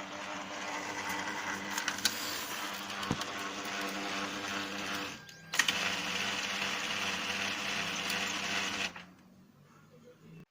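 Lexmark MB2236 laser printer running with a steady mechanical grinding, the fault traced to its fuser, which needs grease and its collars reversed. It pauses briefly about five seconds in, starts again with a click, and stops about nine seconds in.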